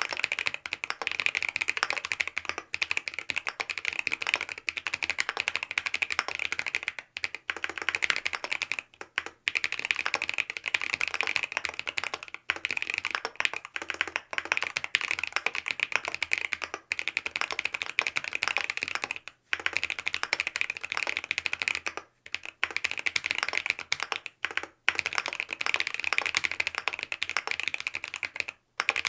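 Fast continuous typing on a Mont Cervin mechanical keyboard with BSUN OG Holy Panda tactile switches, lubed with Tribosys 3204, in a PC plate with foam damping, under Key Kobo keycaps. Rapid keystroke clacks with brief pauses every few seconds.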